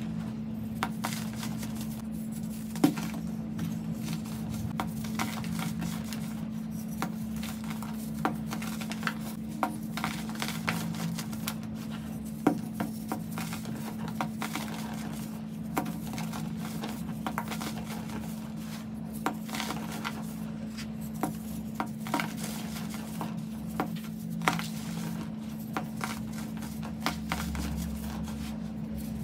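Hands crushing and crumbling blocks of pressed baking soda: an irregular run of crisp crunches and crackles as the chunks break and powder falls through the fingers, over a steady low hum.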